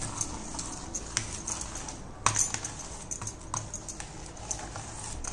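Jaggery-coated puffed rice crackling in irregular small clicks as it is pressed and spread flat by hand in a steel plate, with one louder crackle a little over two seconds in.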